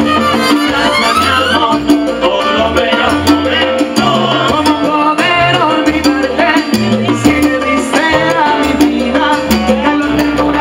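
Live salsa band playing loudly through the stage PA, with conga drums and a singer.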